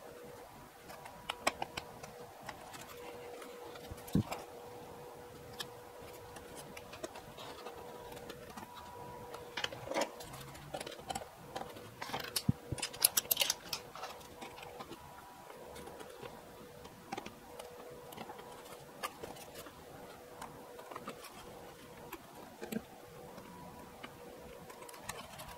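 Scattered light clicks and taps of a small screwdriver, screws and foam model parts being handled on a workbench, with a small cluster of quick clicks a little after the middle. A faint steady hum runs underneath.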